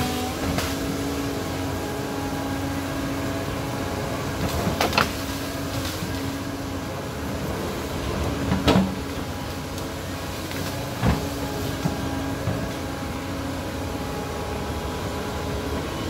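Doosan DX225LCA hydraulic excavator's diesel engine running steadily under working load while the bucket digs into loose soil and brush. A few sharp knocks from the bucket and boom stand out, about five, nine and eleven seconds in.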